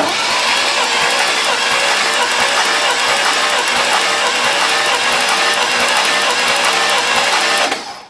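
Starter motor cranking a 1971 International Harvester Blue Bird bus's V8 with all spark plugs removed, for a compression test of cylinder four: a fast, even whir that starts abruptly and stops shortly before the end.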